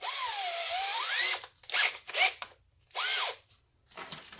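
Electric drill with a grinding bit run in bursts against the brass tumblers of a door lock, grinding down the tumblers that stick out past the key. The first run lasts about a second and a half, its motor pitch dipping under load and then rising again, followed by several shorter bursts.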